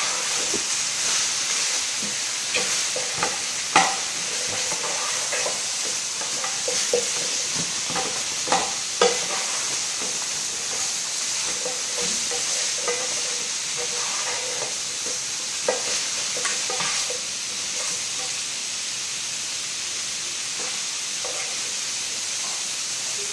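Chicken frying in oil in a pan, sizzling steadily, with occasional sharp clicks and knocks.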